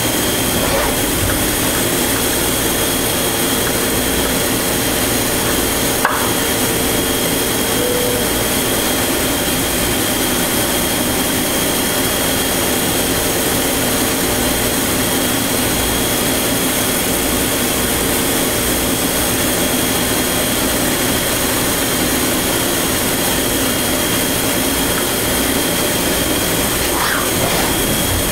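Leadwell V 20iT vertical machining centre running, its spindle spinning a cutter against a part on the tilting rotary table, with a steady loud whir and a high steady whine. There is a single click about six seconds in.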